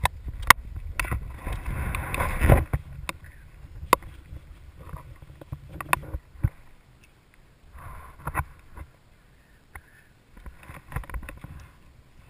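Scattered sharp clicks and knocks of hang glider gear and the camera mount being handled, with a heavy wind-like rumble on the microphone for the first couple of seconds that dies down.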